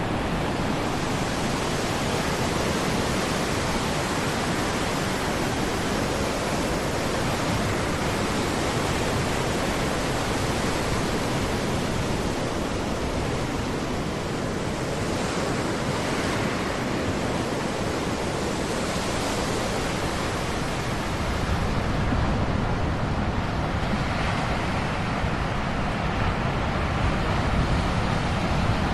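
Ocean surf: a continuous rushing wash of waves, swelling and easing slowly with no breaks, and a fuller, deeper rumble in the last few seconds.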